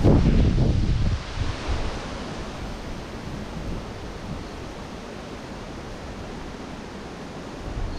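Gusty typhoon wind buffeting the microphone. A strong low rumbling gust in the first second eases into a steady rushing hiss, and the wind starts to pick up again near the end.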